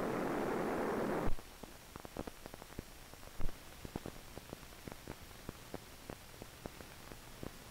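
Steady rushing noise inside a C-119 cargo plane's cockpit for about a second, cut off abruptly. Then come the faint crackle and scattered pops of an old film soundtrack, with one louder pop partway through.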